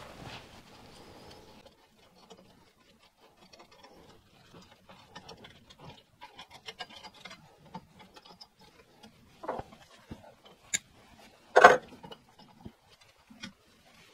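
A homemade lever-type fork spring compressor being eased off by hand: light scattered metal clicks and rattles from the lever arm and its bolts. There is a knock about nine and a half seconds in, and a sharper, louder knock near the end.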